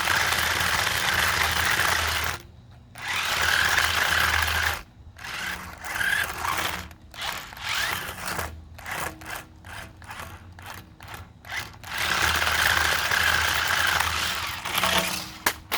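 Toy remote-control stunt car's small electric motors running and driving the wheels in bursts. There are long runs of about two seconds at the start and a longer run near the end, with many short stop-start bursts in between.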